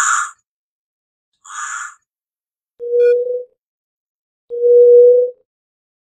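Eurasian hoopoe calling: two short harsh rasping calls, the second fainter, then two drawn-out low hoots, the second longer and louder.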